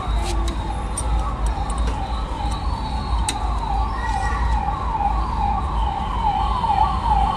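Electronic siren sounding a rapid repeating yelp: falling sweeps about two and a half times a second, over a steady low rumble of traffic.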